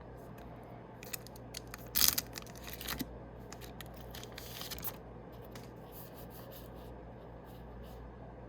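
The foil wrapper of a Yu-Gi-Oh booster pack being torn open and crinkled, with small ticks of handling. The loudest tear comes about two seconds in, and a softer rustle follows near the middle.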